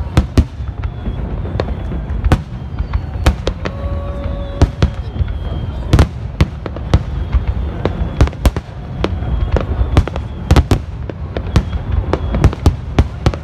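Aerial fireworks shells bursting in a dense barrage: many sharp bangs, several a second, over a continuous low rumble.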